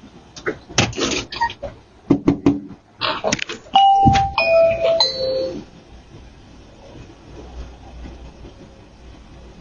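A run of sharp knocks and clatter, then a doorbell chime of three notes stepping down in pitch, about four seconds in. A low steady rumble follows.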